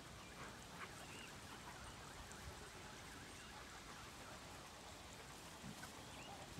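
Near silence: a faint steady outdoor hiss, with a few faint short chirps.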